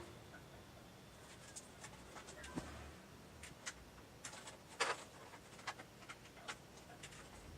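Faint, scattered clicks and taps of SATA cables and connectors being handled and routed inside a desktop PC case, with one sharper click just under five seconds in.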